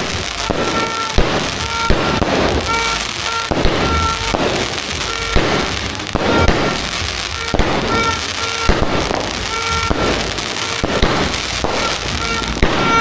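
Dragon Fireworks' Tree of Life firework going off in a steady run of shots, about one a second, over continuous crackling.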